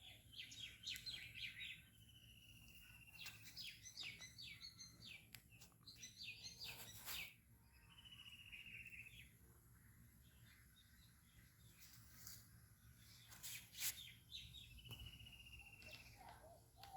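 Faint birdsong: bursts of quick chirps and a short, slightly falling trill repeated three times, over low background hiss. A few sharp clicks or knocks cut in, the loudest about fourteen seconds in.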